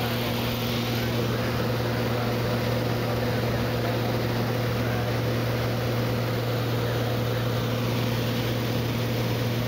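Cessna 185 Skywagon floatplane's piston engine and propeller droning steadily in flight, heard inside the cabin: one low, even hum with higher overtones over a constant rush of wind and engine noise.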